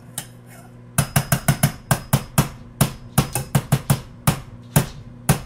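A metal potato masher striking the bottom of a stainless steel bowl again and again as it mashes bananas in oil. The knocks are sharp and rapid, about four or five a second, starting about a second in.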